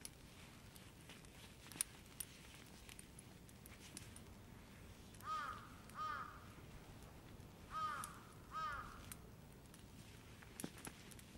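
A crow cawing four times, in two pairs of short calls, over a quiet background, with a few sharp clicks scattered around them, the loudest about two seconds in.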